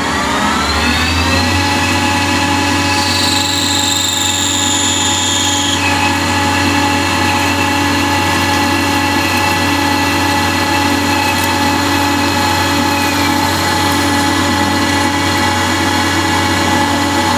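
Ganesh CNC lathe running a cycle on aluminium bar stock: the spindle speeds up with a rising whine in the first second or so, then runs at a steady pitch over a low hum. A high-pitched whine comes in about three seconds in and stops abruptly about six seconds in.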